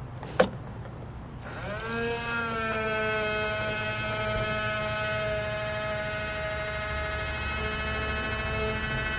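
A sharp click, then the small electric motor of a toy front-loader garbage truck starts about a second and a half in. It winds up to a steady whine as it drives the loader arms, lifting the bin up over the cab.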